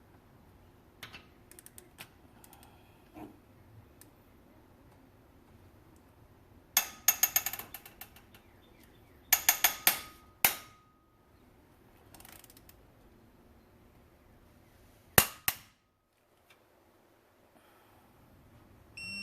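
Ratchet wrench clicking in short runs of rapid metallic clicks while bolts on the 2ZR-FE engine are tightened in sequence, with a couple of sharper single clicks later on.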